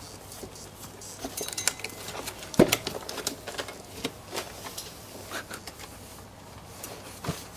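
A cat's struggle inside a lidded woven basket: scattered creaks, scrapes and rustles of the weave and lid as the cat pushes up from below, with a sharp knock about two and a half seconds in as the lid is forced.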